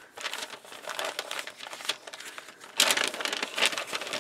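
Brown kraft paper bag crinkling and rustling as it is unfolded by hand. It grows louder about three seconds in.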